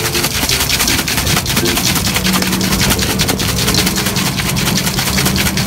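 A small engine running steadily with a fast, even rattle, joined by a steady low hum from about two seconds in.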